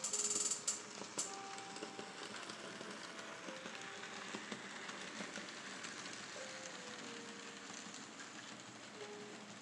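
N scale model train running along its track, a steady whirring hiss of the small motor and wheels, with a few sharp rattling clicks in the first second or so. Faint background music plays a slow line of single notes underneath.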